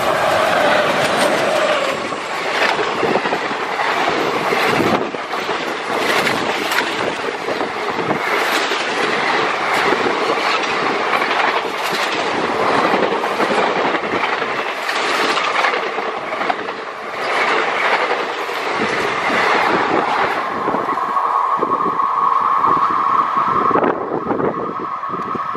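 Twin WDM-3A Alco diesel locomotives passing at speed under full power, then a long rake of passenger coaches rolling by with fast, continuous wheel clatter. Near the end the clatter thins as the train draws away, and a steady high tone remains.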